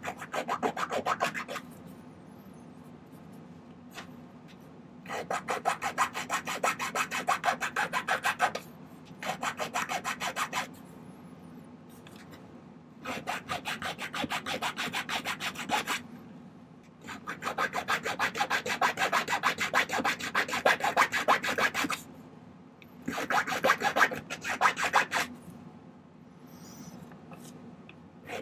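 Half-round jeweler's file rasping across sterling silver wire in fast back-and-forth strokes. It comes in repeated bursts of a few seconds with short pauses between, as the metal is distressed with indented spots.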